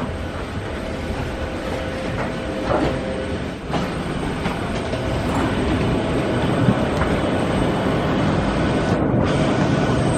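Wheels of rolling carry-on suitcases rumbling and clattering over the jet bridge floor, with footsteps, over a steady hum. A few sharp clicks sound around three to four seconds in.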